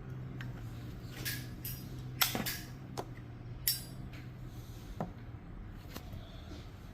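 Zippo lighter being handled: a series of sharp clicks and clinks, the loudest a little over two seconds in and just under four seconds in, over a low steady hum that stops about five seconds in.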